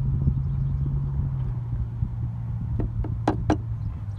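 Engine of an old Ford work truck with a blown head gasket idling with a steady low hum and rumble. A few sharp clicks come about three seconds in.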